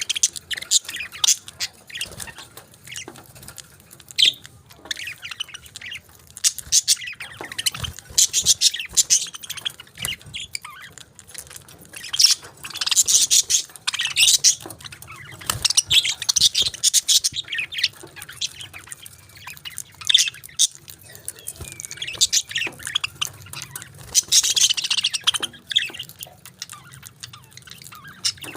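Pet parakeets chirping and chattering in quick, high-pitched bursts without a break, busiest around the middle and again near the end.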